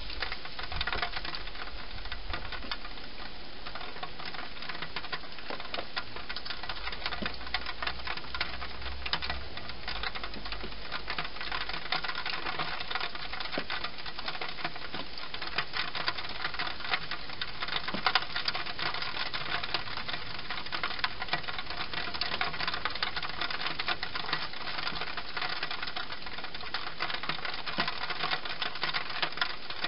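A wild hedgehog eating from a dish: a steady run of rapid chewing clicks, with one sharper click about 18 seconds in.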